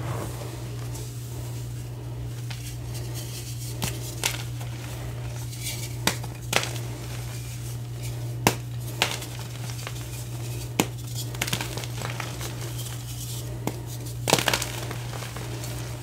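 Hands crushing a block of gym chalk into loose chalk powder: crumbling with sharp, irregular snaps and crackles, a cluster of the loudest near the end, over a steady low hum.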